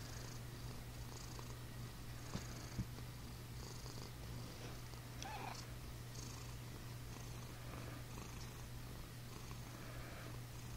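Domestic cat purring steadily close up, a low continuous purr with a soft breathy hiss rising and falling about once a second, and a few faint clicks.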